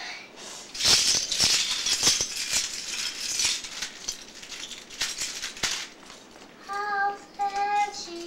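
A bin of small plastic building bricks tipped out onto the carpet and rummaged through: a dense clattering rattle for several seconds that stops a little before the end. Near the end, a small child's voice makes two short held notes.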